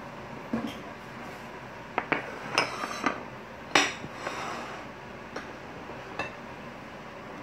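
Bowls and plates clinking and knocking on a kitchen countertop as they are moved about: a handful of separate clinks, the loudest about four seconds in.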